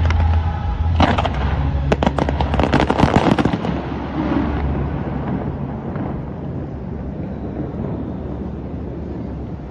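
Fireworks going off in a rapid volley of bangs and crackles for the first three or four seconds, then dying away, leaving a low steady rumble.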